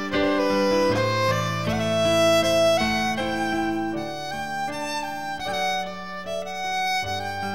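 Instrumental background music of held, string-like notes, with the chords changing every second or so.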